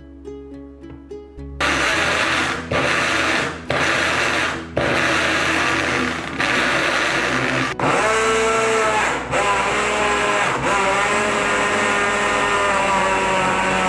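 Small push-to-run bottle blenders chopping chunks of fruit in liquid. The motor starts about one and a half seconds in and runs in loud pulses, cutting out briefly about seven times. In the second half a steady whine rides over the noise.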